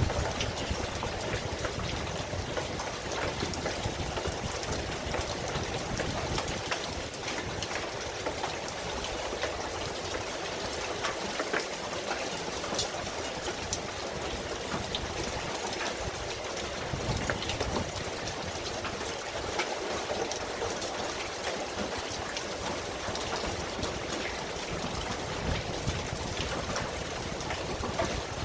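Steady rain falling, with many small drop ticks over a constant hiss.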